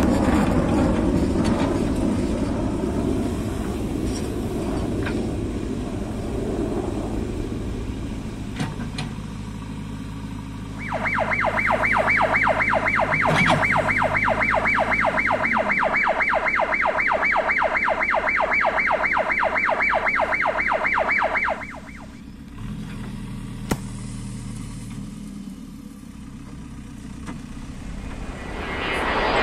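JCB 3DX backhoe loader's diesel engine running, fading somewhat over the first ten seconds. About ten seconds in, a steady, rapid electronic beeping starts, several beeps a second, and cuts off abruptly some ten seconds later; the engine then runs on more quietly and grows loud near the end.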